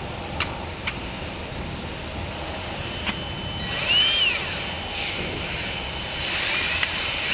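Power drill run in short trigger pulls, each a brief whine that rises and falls in pitch, once about four seconds in and again near the end, with a few light clicks earlier on.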